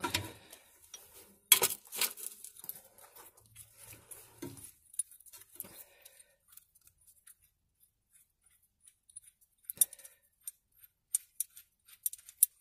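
Light metallic clicks, scrapes and clinks as the bolt and locking tab are wound out by hand from a gearbox output flange. A sharper clink comes about one and a half seconds in, and a run of light ticks near the end.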